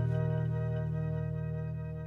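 Background music: a held chord with a deep bass note, slowly fading.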